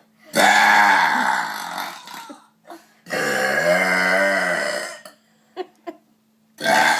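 Long, loud human belches, one after another: one of about two seconds near the start, another of about two seconds in the middle whose pitch dips and rises again, and a third beginning near the end.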